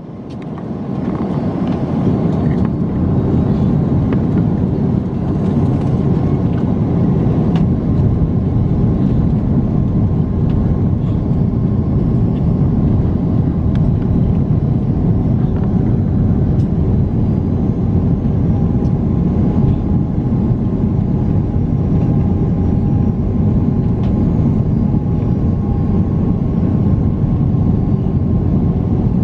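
Steady rumble of an airliner in flight heard from inside the passenger cabin on descent: engine and airflow noise, with a faint steady whine in the second half.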